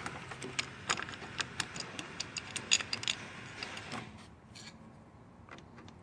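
Light metallic clicks and ticks of a hand tool turning the last bolt into a motorcycle engine case protector, several irregular clicks a second. The clicking stops about four seconds in.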